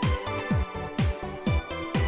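Electronic background music with a steady four-on-the-floor kick drum, about two beats a second, under sustained synth chords.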